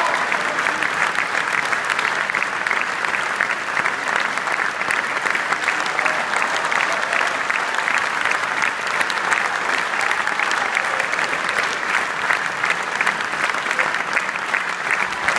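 Theatre audience applauding: a dense, steady mass of hand clapping that keeps up without a break.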